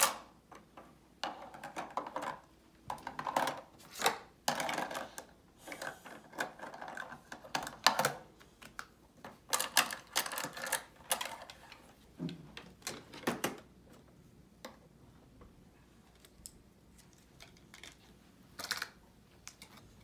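Hard plastic toy dishes and play food clicking and clattering against a plastic toy kitchen and its sink during pretend washing-up. There are many irregular knocks for most of the first two thirds, then only a few scattered clicks.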